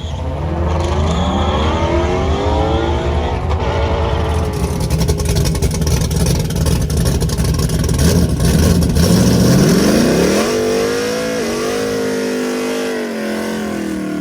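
A car engine accelerating hard: its pitch climbs for a few seconds, then a second steep climb levels off into a high, steady note with brief dips and rises like gear shifts. A steady low rumble underneath stops about ten seconds in.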